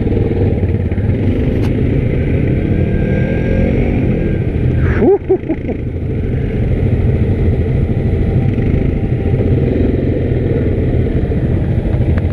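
2019 Yamaha Grizzly 700 ATV's single-cylinder engine running steadily while riding along, with a brief sharp knock about five seconds in.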